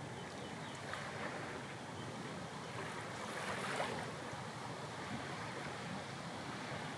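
Sea waves washing in gently: a steady surf hiss, swelling to one louder wash about halfway through.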